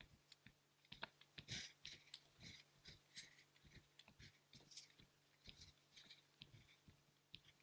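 Faint, quick footfalls of sneakers on a hard floor from two people running in place with heel-to-buttock kicks, about two to three soft thuds a second.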